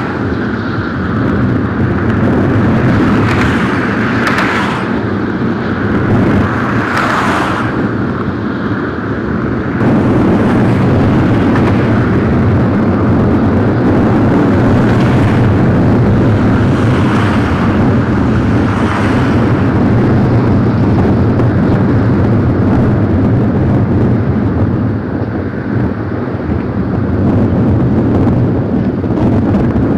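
Steady loud outdoor rumble with a constant low hum beneath it, and a few brief hissy swells; the sound changes abruptly about ten seconds in.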